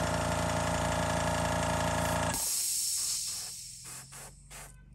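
An airbrush hissing as it sprays a transparent orange paint coat onto a crankbait. Under it a motor hums steadily, then cuts off suddenly a little over two seconds in. After that the airbrush sprays in a series of short puffs.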